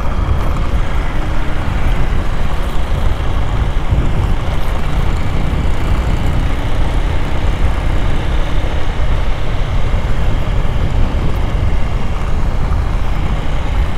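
Motorcycle on the move: a steady mix of engine, road and wind noise with no change in pace.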